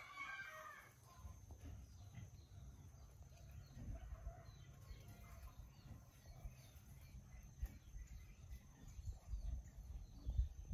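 Quiet outdoor ambience: faint, scattered bird calls over a low rumble.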